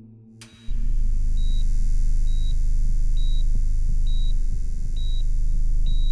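Hospital patient monitor beeping steadily, one short high beep a little under every second, over a loud low steady drone that starts suddenly under a second in, as faint musical tones die away.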